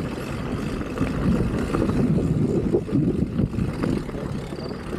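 Mountain bike rolling along a dirt trail: steady tyre and wind noise with scattered knocks and rattles from the bike, heard through an action camera's microphone.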